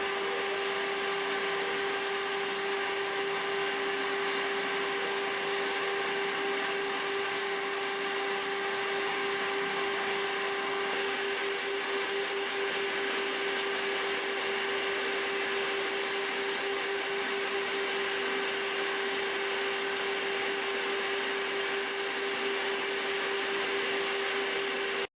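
Home-built CNC gantry router running, a steady whine at one constant pitch over an even hiss, cutting off abruptly at the end.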